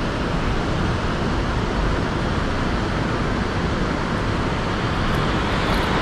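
Steady rushing of fast-flowing river water, a constant even hiss with a deep low rumble.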